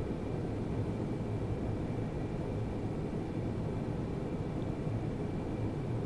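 Steady low rumbling background noise with a faint, steady high whine above it: room tone with no distinct events.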